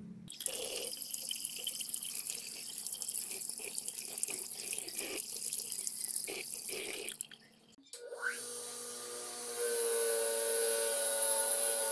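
Water running from a wall tap and splashing onto a rusty hatchet head as it is rinsed. After a short gap, a wire wheel on a pedestal-mounted motor runs with a steady whine, and a loud high hiss joins in near the end as the steel meets the wire brush.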